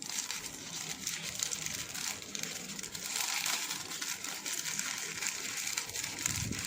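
Packaging rustling and crinkling as it is handled and opened, with small clicks and taps, somewhat louder from about three seconds in.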